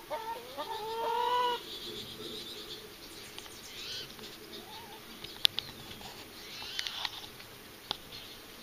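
A hen calling in long, drawn-out notes for about the first second and a half. Then it goes quieter, with faint high twittering of small birds and two sharp clicks.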